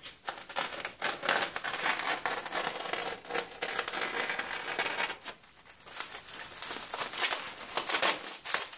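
Bubble wrap crinkling and crackling with many small snaps as it is handled and pulled open by hand, with a brief lull about five seconds in.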